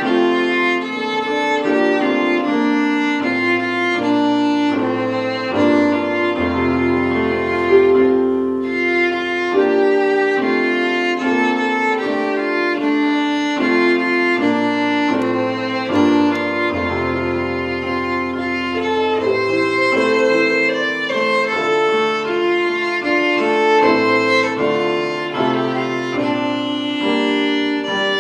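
Violin and keyboard playing together. The violin carries a melody with vibrato over sustained keyboard chords, and long low bass notes are held twice.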